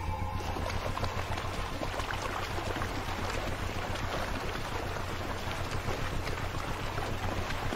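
A group of lionesses wading through a shallow river: steady splashing and sloshing of water around their legs, over a low steady drone.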